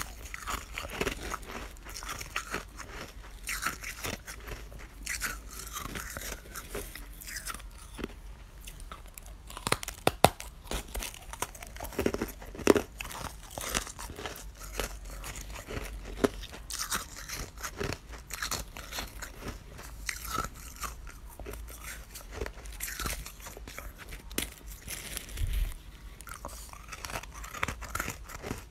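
Freezer frost being chewed and crunched: irregular crunches of packed ice crystals between the teeth, with a few sharper crunches about ten and twelve seconds in.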